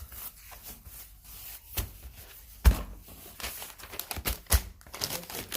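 Rustling and crinkling with scattered sharp knocks and clatter, the loudest knock about two and a half seconds in and a quick cluster of them about four and a half seconds in.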